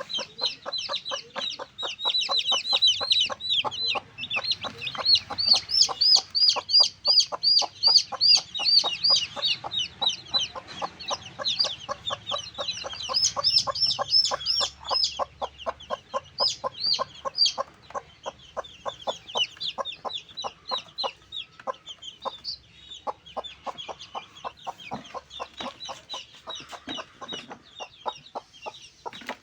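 Backyard chickens calling continuously. There are runs of rapid, high peeping calls, loudest in the first half, over a fast patter of short clucks.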